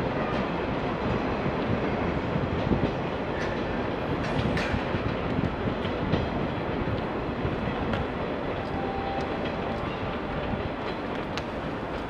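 JR West 103 series electric train pulling away and rolling off, a steady rumble with wheels clicking now and then over rail joints and points, easing slightly as it draws away.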